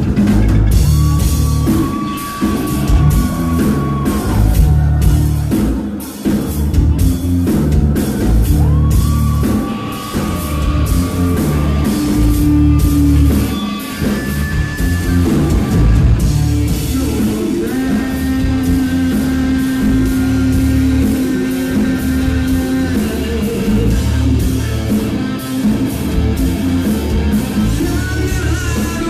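Rock band playing loud live: electric guitars, bass and a drum kit, with several long held notes over a driving beat, heard from among the audience.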